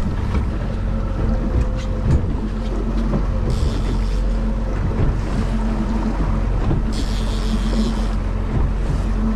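Boat engine running steadily, with wind and water noise. Twice a short rush of high hiss breaks in.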